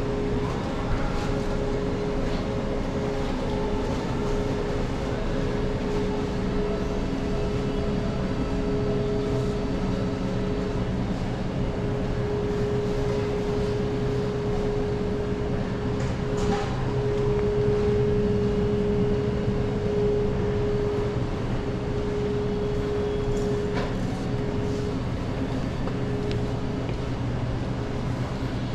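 Steady mechanical hum with a held mid-pitched tone and a low drone beneath it, a few faint clicks and knocks over it.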